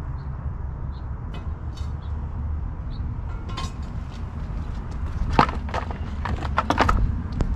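Steady low rumble of wind on the microphone. About five seconds in comes a quick run of sharp knocks and scuffs, such as handling or steps.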